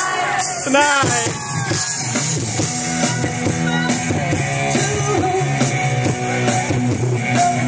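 Live rock band playing through a PA system: drums and amplified instruments, with a singer's voice heard about a second in.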